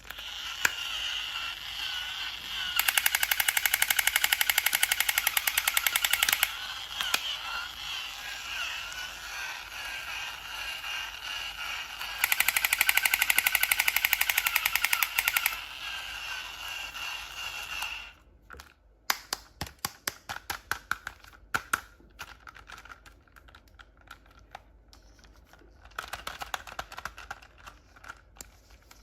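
A toy's rapid, gunfire-like rattling sound effect with a high steady tone, in two loud bursts of about three seconds each. Scattered clicks and taps follow near the end.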